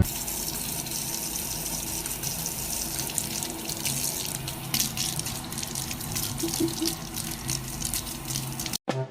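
Steady rush of running water, cut off abruptly near the end.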